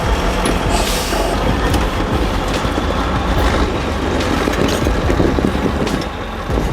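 Heavy 8x8 off-road truck running over rough ground, its engine rumbling with a continuous clatter and rattle of the chassis and running gear.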